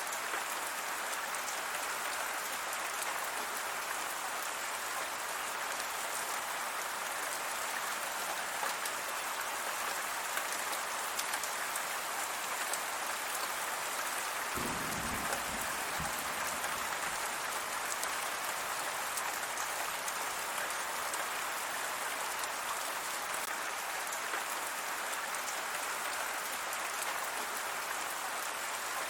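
Steady rain falling, an even dense hiss of drops. A brief low rumble comes about halfway through.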